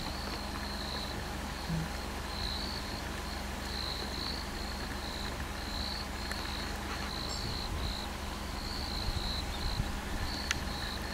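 Insects singing outdoors: a high chirping trill that comes and goes about once or twice a second, over a steady low rumble.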